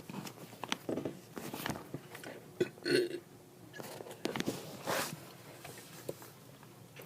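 A person burping: a short burp about a second in and a louder one about three seconds in, among small clicks of mouth and handling noise.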